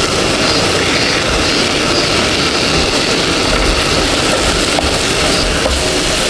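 Chicken and tomato curry sizzling in a pot on a gas camp stove as a wooden spoon stirs it, a loud steady frying hiss with a few low knocks of the spoon.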